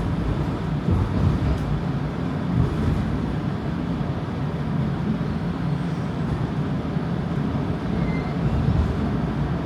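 Toronto streetcar running along its track, heard from inside the car: a steady low rumble of the motors and wheels on the rails.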